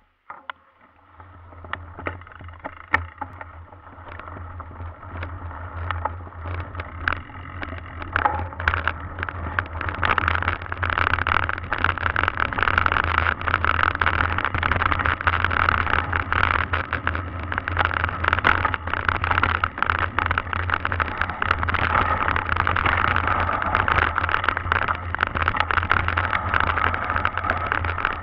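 Mountain bike riding a dirt and leaf-covered trail, heard through a handlebar-mounted camera: tyre noise on the ground with a steady low rumble and the bike rattling in many sharp clicks. It grows louder over the first ten seconds or so as the bike picks up speed, then stays loud.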